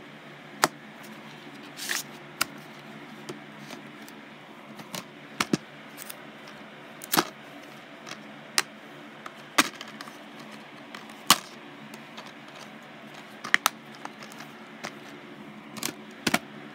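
Plastic Blu-ray cases clicking and clacking as they are handled and shuffled, a dozen or so sharp clicks at irregular intervals over a faint steady hum.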